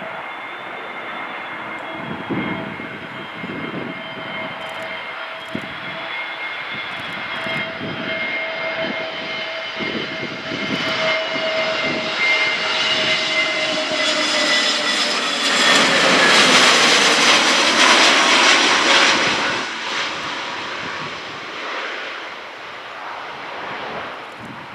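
Airliner passing close by: its engine whine holds steady, then drops in pitch as it goes past, getting loudest about two-thirds of the way through before fading. Wind buffets the microphone throughout.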